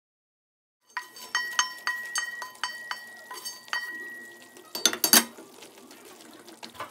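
Wooden spatula knocking and scraping fried almonds and pistachios out of a metal frying pan, the pan ringing briefly with each of about ten quick knocks, starting about a second in. Then a louder scraping clatter, followed by softer stirring of the nuts into the stew in a clay tagine.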